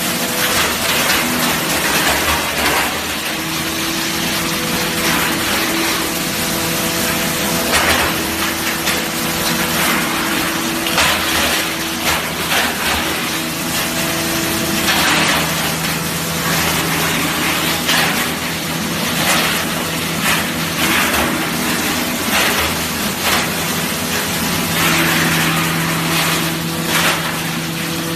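Sawdust wood mill running and grinding wood: a steady, loud machine drone with a dense rushing noise and louder surges every few seconds.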